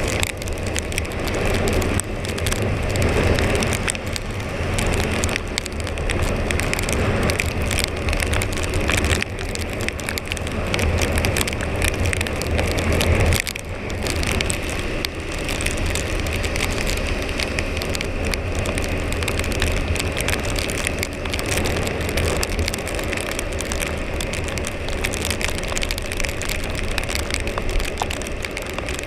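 Husqvarna Svartpilen 401's single-cylinder engine with its stock exhaust, running under way and rising and falling with the throttle, briefly easing off a little under halfway through. Under it a steady hiss of rain and tyres on the wet road.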